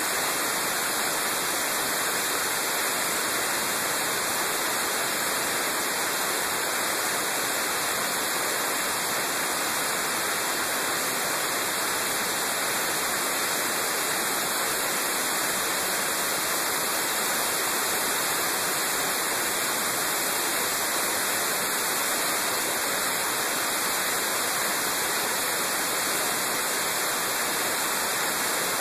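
Steady rushing hiss of wind noise on a motorcycle-mounted camera at road speed, with no engine note to be heard.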